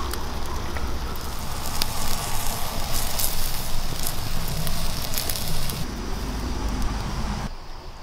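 Eel in chili-garlic sauce roasting in bamboo, sizzling and bubbling with sharp crackles. It drops away abruptly about seven and a half seconds in.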